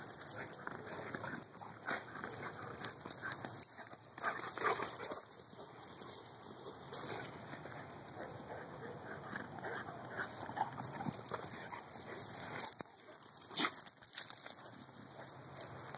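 Two dogs playing and chasing each other, with short, irregular dog sounds.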